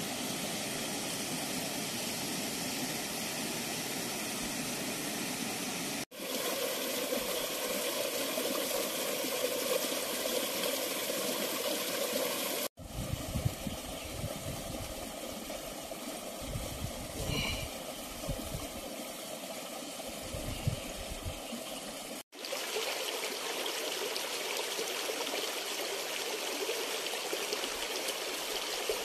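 Shallow river flowing over rocks: a steady rush of water whose character shifts abruptly at three cuts. The middle stretch carries extra low rumbles.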